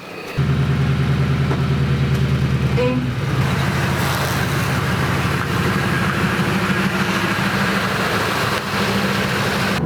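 Motor vehicle engine running steadily with a low, even hum; it comes in abruptly about half a second in.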